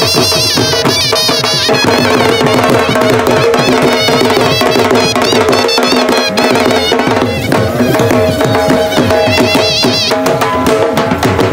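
Live Punjabi folk music: a shehnai playing a wavering, ornamented melody over two dhol drums beaten in a steady driving rhythm.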